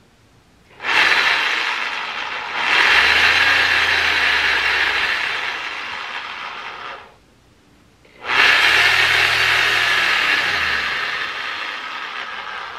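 Corded reciprocating saw running, its blade cutting through a thick foam mattress, which it cuts easily. It starts about a second in, stops after about six seconds, then starts again about a second later and keeps running.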